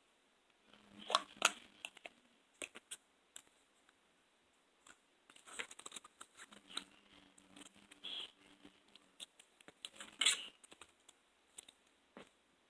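Irregular small clicks, crackles and rustles of close-up handling, with louder bursts of crackling about a second in and again near ten seconds.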